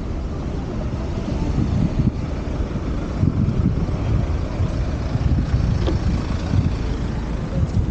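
Uneven low wind buffeting on the microphone of a moving bicycle, mixed with the noise of car traffic queued close alongside.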